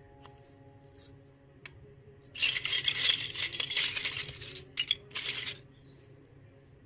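Miniature stainless-steel toy utensils clinking and rattling against each other: a dense run of rapid metallic clatter lasting about two seconds, starting a couple of seconds in, then a shorter burst just after.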